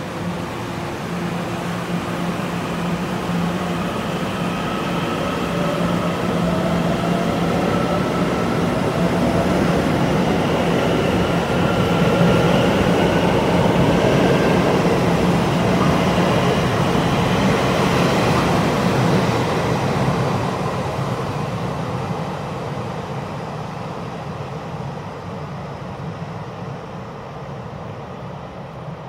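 Taiwan Railway Puyuma (TEMU2000) tilting electric multiple unit pulling out and accelerating past, its traction motors whining with a slowly rising pitch over the rumble of wheels on rail. It grows loudest about halfway through, then fades as it draws away.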